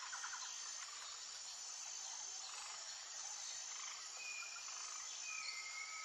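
Faint outdoor nature ambience dominated by insects: a steady high-pitched trilling throughout, and a rapid pulsed trill that stops about a second in. A few thin whistles come in near the end.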